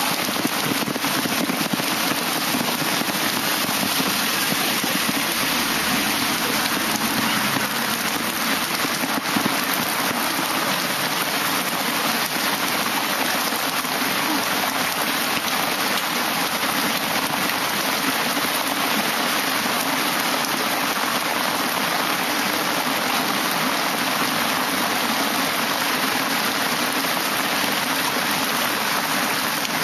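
Torrential downpour pounding a paved street, a dense, steady hiss of heavy rain and splashing water that holds at an even level throughout.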